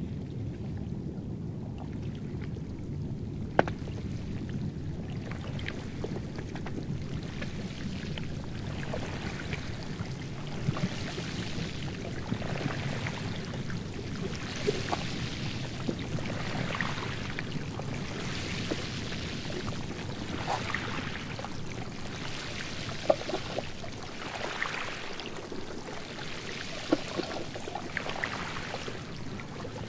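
Thin new sea ice crackling and hissing in surges that come about every two seconds, with scattered sharp clicks and a low steady rumble underneath, like swell working through freezing slush ice.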